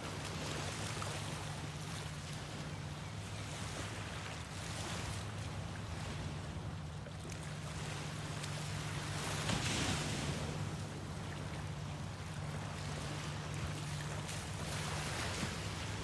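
Small ocean waves breaking and washing up on a sandy beach, the surf swelling and falling every few seconds and loudest about ten seconds in, over a steady low hum.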